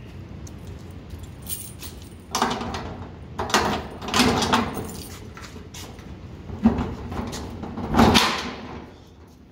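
Metal rattling and clanking as a padlock is worked loose from the latch of a corrugated steel roll-up door, the door shaking in its frame. Several short bursts of rattling with quiet gaps between, a sharp click past the middle, and the loudest rattle near the end.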